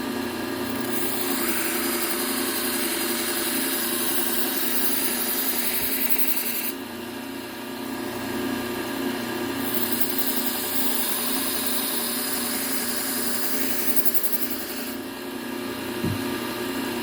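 Bucktool low-speed belt sander running with a steady motor hum, while a kitchen knife blade is ground against the abrasive belt in two long passes, a hiss over the hum from about a second in to about seven seconds, and again from about ten to fifteen seconds.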